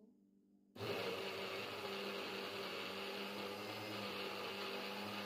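NutriBullet blender motor switching on suddenly about a second in and running steadily with an even hum, grinding Oreo biscuits into crumbs.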